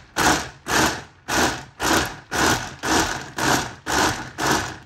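Blender being pulsed in short, even bursts, about two a second, each spin starting sharply and fading, as it churns a thick mix of soaked puppy kibble and hot water into mush.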